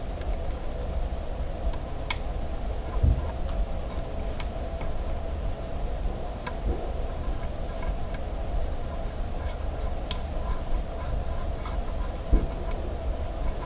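Lishi 2-in-1 pick working the wafers of a Hyundai Sonata door lock: scattered small, irregular metallic clicks and ticks over a steady low hum, with a couple of dull thumps.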